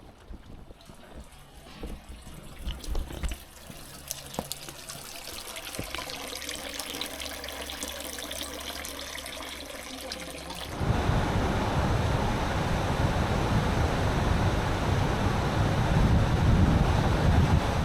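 Running water with a few scattered small clicks, turning abruptly into a louder steady rush about eleven seconds in.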